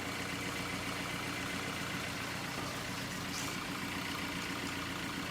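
Tata Zest engine idling steadily with the bonnet closed, heard from about ten feet away while it is still warming up. There is no knocking: the crank knock the car came in with is gone after the repair.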